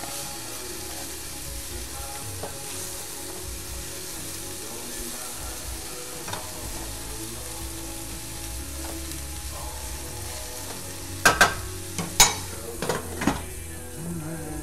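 Breaded chicken pieces sizzling as they fry in a stainless steel skillet, stirred and turned with a wooden spatula. Near the end come a few sharp clanks as the pan is covered with its glass lid.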